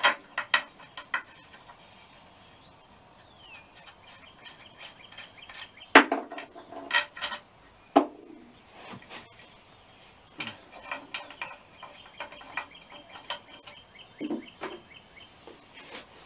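Metal clinks and knocks of hand tools and bolts while parts are fitted to an air-cooled VW bus engine, with two sharper knocks about six and eight seconds in and a run of quick light clicks later on.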